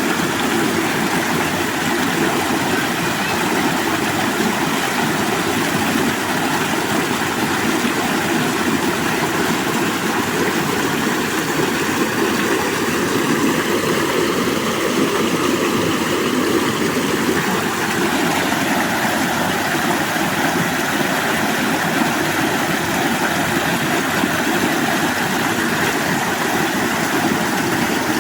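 Running water flowing in a steady, continuous rush.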